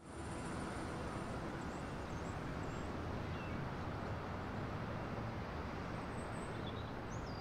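Steady outdoor background noise with a low rumble, and a few faint high chirps.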